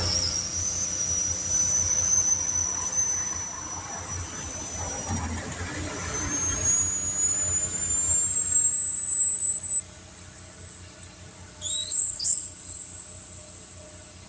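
High, steady pneumatic whine from compressed air during the tire repair, slowly rising in pitch, with a quick upward sweep near the end.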